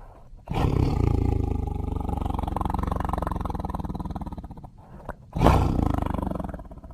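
Tiger roaring: one long rough roar lasting about four seconds, then a second, shorter and louder roar near the end.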